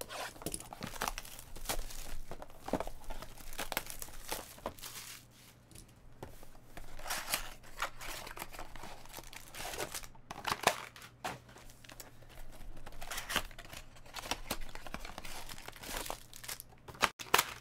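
Cellophane shrink wrap being cut and torn off a 2015 Bowman's Best trading card box, crinkling in irregular rips and crackles. Then the box's cardboard flaps are torn open and its contents slid out.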